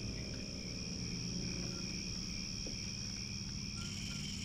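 Steady chorus of night insects chirring in a continuous high band, over a low steady rumble.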